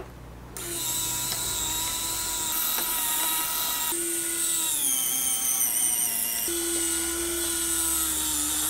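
Small electric motor and gear train of a 1:10 scale RC crawler winch whining steadily as it reels in its steel cable under load. The pitch jumps abruptly a few times and sags once about halfway through.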